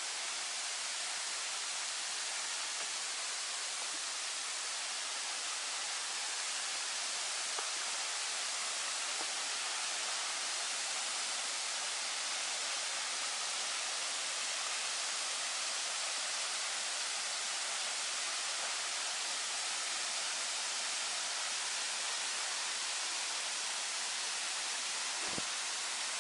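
Waterfall pouring over rocks: a steady, even rush of water, with one brief low thump near the end.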